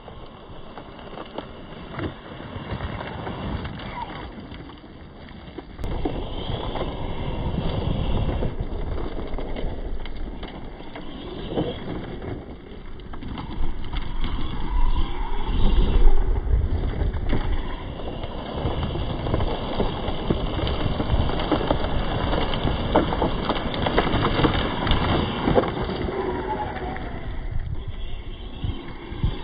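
Losi Baja Rey 1:10 4WD RC truck with a brushless motor driving over gravel and grass. Its motor whine rises and falls, over a continuous noise of tyres and rumble that is loudest about halfway through.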